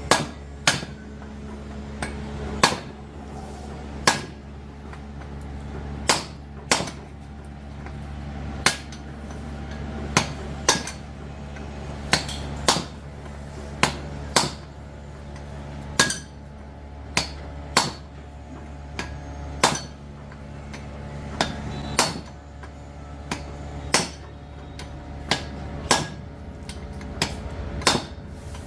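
Hammer blows on metal, struck at an uneven pace of roughly one every one to two seconds, each with a short ringing tail, over a steady low hum.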